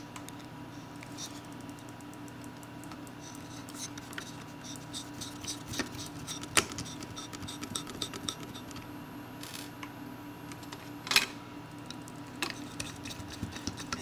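Small screwdriver driving tiny screws into a trackball mouse's plastic housing and circuit board: a run of light ticks and clicks with a couple of sharper taps, over a steady low hum.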